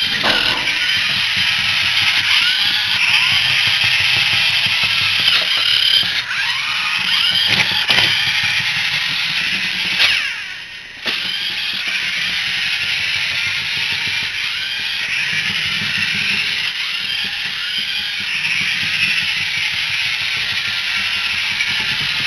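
Small DC gear motors of a two-wheel Arduino robot whining as it drives and turns, the pitch sweeping up and down as the motors speed up and slow. The sound drops out briefly about ten seconds in.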